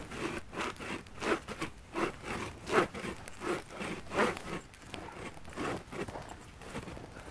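Hand saw cutting firewood, a steady back-and-forth rasp of about two to three strokes a second.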